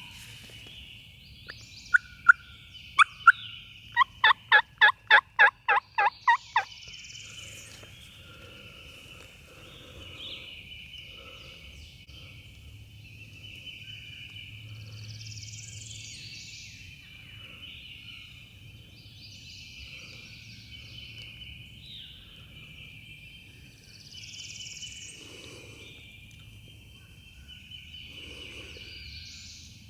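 Turkey calling: three sharp single notes, then a quick, evenly spaced run of about ten loud notes lasting a couple of seconds. A steady high-pitched drone from the woods and scattered faint chirps run underneath.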